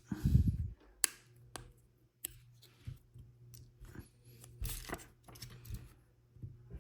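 Hands handling the small plastic parts of a snap-together toy car kit: a soft thump at the start, then scattered sharp clicks and brief crackles of plastic.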